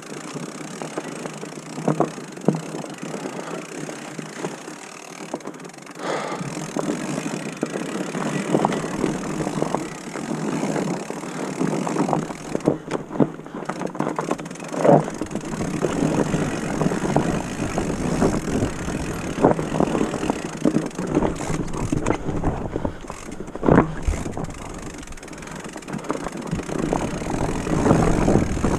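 Mountain bike riding over a rough, leaf-covered forest trail: a steady rush of tyre noise with frequent sharp knocks and rattles as the bike hits rocks and roots.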